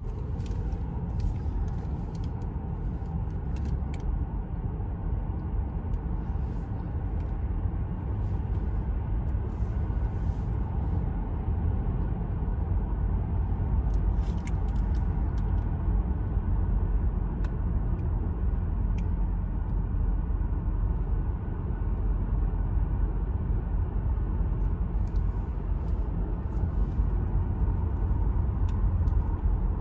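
Car driving at road speed, heard from inside the cabin: a steady low rumble of tyres and engine, with a few faint ticks scattered through it.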